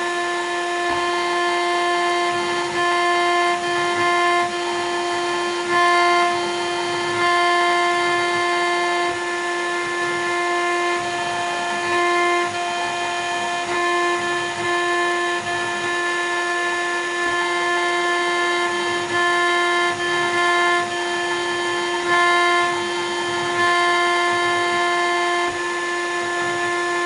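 CNC router spindle whining at a steady high pitch while its bit cuts a rotating acrylic cylinder. The cutting noise swells in short stretches every few seconds as the tool works along the rod.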